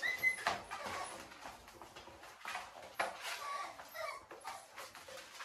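American Bully puppy whimpering in several short, high cries, with scattered clicks and rustling around it.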